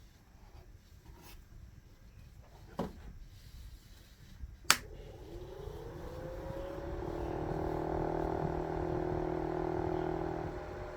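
A sharp switch-like click, then the small electric fan motor of a homemade model air conditioner spins up with a rising whine and runs steadily, dropping back a little near the end.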